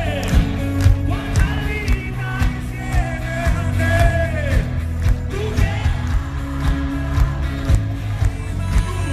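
Pop-rock band playing a song, with a steady drum beat, bass and a sung melody over it.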